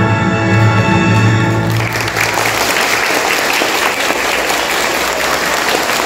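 Recorded orchestral polonaise music ends on a held chord about two seconds in, and an audience of schoolchildren clapping takes over.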